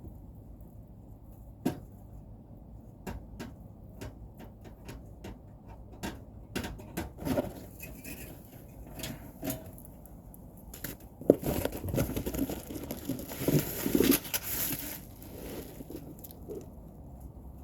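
Hand work on an air-conditioner outdoor unit: scattered clicks and knocks of tools and parts being handled. A louder stretch of rustling and scraping comes about two-thirds of the way in, over a faint steady low hum.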